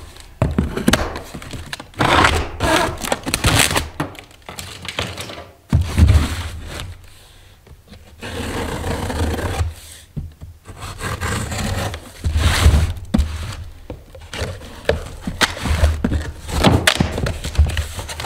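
Cardboard shipping box being handled and opened by hand: irregular thunks and knocks as it is shifted about, with stretches of scraping and rustling cardboard as the flaps are pulled open.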